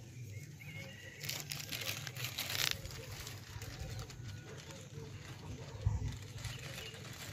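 Outdoor ambience: a burst of rustling and crackling lasting about a second and a half, starting a little over a second in, over a low steady rumble, with a single thump about six seconds in.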